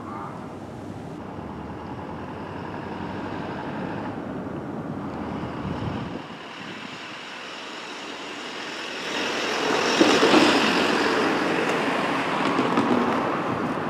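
Road traffic: a steady rumble of passing vehicles that falls away about six seconds in. Then a vehicle passes close, swelling up to its loudest about ten seconds in.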